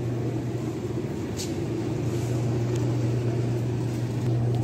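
Steady low hum of open refrigerated supermarket display cases, with a faint tick about a second and a half in.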